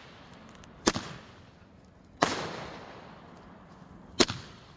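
Multi-shot firework firing shot after shot: three sharp bangs roughly one and a half to two seconds apart, each trailing off in a long echo.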